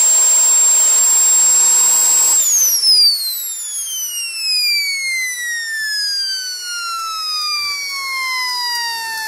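Home-built 66 mm model jet turbine running with a steady high whine and the rush of its exhaust. About two and a half seconds in the rush stops and the turbine spools down, its whine falling steadily in pitch as the rotor slows after shutdown.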